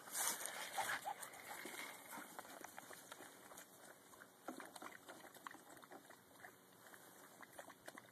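Dogs drinking and splashing in a plastic kiddie pool: faint, irregular lapping and sloshing of water, busier in the first couple of seconds.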